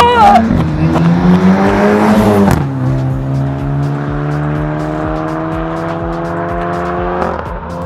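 Stage 2 tuned Skoda Octavia vRS 230 with a full-system exhaust accelerating flat out. The engine climbs in pitch for about two and a half seconds, then drops sharply on a quick DSG upshift. It then pulls again with its pitch slowly rising, until it fades near the end.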